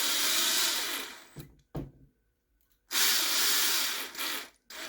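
Small electric screwdriver running in two bursts of about two seconds each, with its pitch wavering under load as it drives small M2 screws into 3D-printed plastic parts. A few short clicks come between the bursts.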